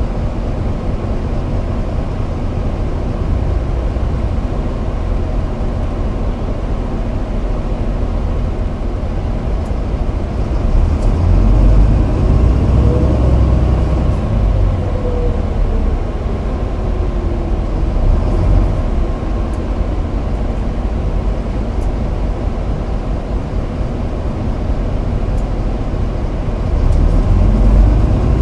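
City bus in motion, heard from inside: a steady low engine and road rumble. About twelve seconds in it gets louder and a whine rises in pitch as the bus speeds up, then falls slowly away; another rise starts near the end.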